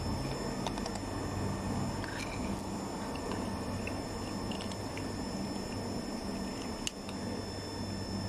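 Kittens crunching dry cat food from a bowl: small scattered chewing clicks, with one sharper click about seven seconds in, over a steady low hum.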